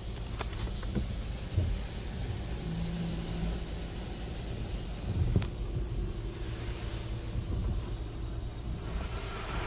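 Hanna tunnel car wash heard from inside the car: water spray drumming on the glass and body over a steady low rumble, with a couple of dull thumps as the cloth mitter curtains and brushes strike the car.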